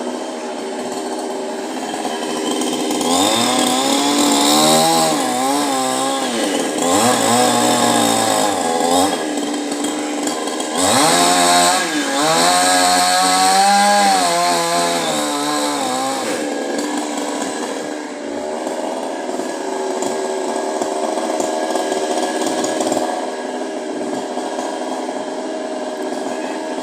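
Chainsaw running throughout, with two long stretches where its pitch wavers up and down as it is worked under load, cutting through the coconut trunk, and steadier running in between and near the end.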